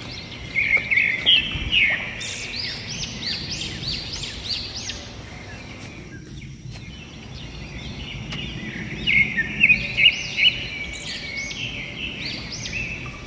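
Birds singing: a busy run of quick, arched chirps that thins out briefly midway, over low outdoor background noise.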